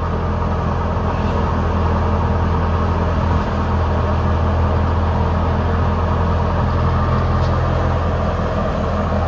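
Tractor-driven wheat thresher running steadily at working speed, its drum and blower humming over the Fiat 640 tractor's diesel engine, in one even, unbroken drone.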